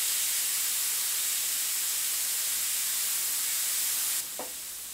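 Gravity-feed airbrush spraying ink: a steady high hiss of air through the nozzle that cuts off suddenly about four seconds in.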